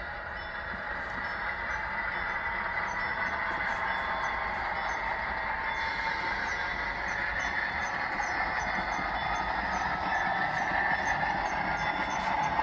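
Model Amtrak Genesis-type diesel locomotive pulling away, its sound-equipped engine running steadily through its small onboard speaker, mixed with the running noise of the model on the track. It grows slowly louder as it gets going, with faint regular ticking over the track.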